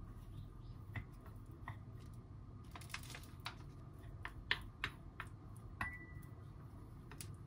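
Wooden spoon stirring cooked rice in a bowl, with light irregular clicks and taps as the spoon knocks against the bowl. One knock about six seconds in rings briefly.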